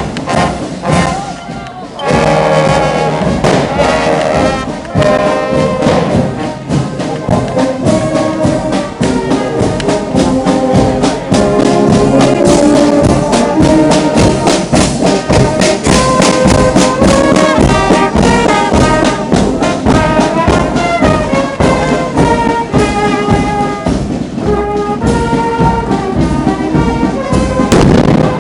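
Brass marching band playing a tune with a steady beat, the brass coming in strongly about two seconds in.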